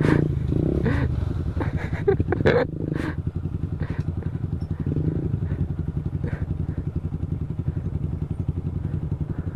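Single-cylinder motorcycle engine running at a steady, low speed while riding, its firing pulses even and unbroken. A few knocks and rattles come in the first three seconds.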